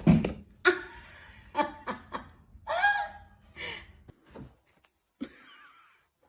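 A person laughing in short bursts, with a loud sudden bump at the very start.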